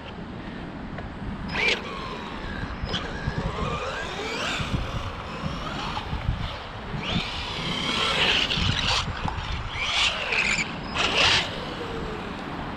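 Brushless motor of a 1/12-scale Bezgar HM124 RC car whining, its pitch rising and falling repeatedly as the throttle is worked while it is driven hard. The louder bursts come in the second half.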